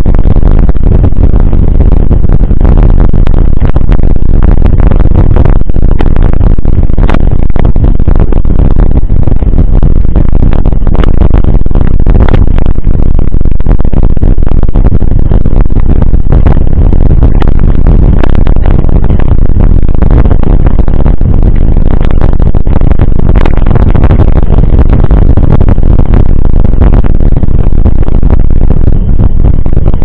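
Mountain bike rolling over a gravel dirt road: heavy wind rumble on the bike-mounted camera's microphone, with constant clicking and rattling from the tyres on loose gravel and the bike shaking over the bumps.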